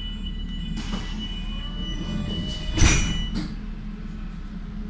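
DT1 metro car standing at a station, its equipment humming low and steady under a high steady tone. The car's sliding doors close, shutting with a loud thump about three seconds in, followed by a smaller knock, and the tone stops.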